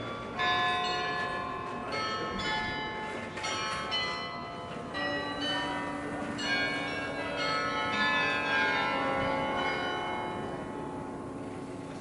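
Church bells of the Dom Tower in Utrecht ringing: many overlapping strokes of different pitches, each ringing on, joined about five seconds in by a deep steady hum. The ringing dies away toward the end.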